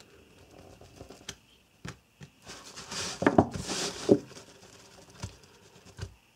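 A nylon pouch being handled while its seam is picked open: fabric rustling and scraping with scattered light clicks. The scraping is densest and loudest about three to four seconds in, with a couple of sharper knocks.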